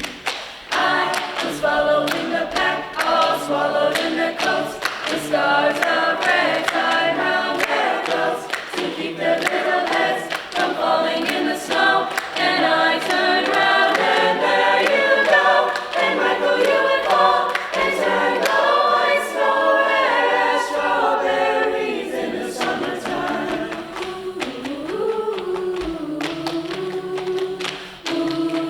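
A choir singing a cappella in harmony, thinning to a few lower voices for the last several seconds.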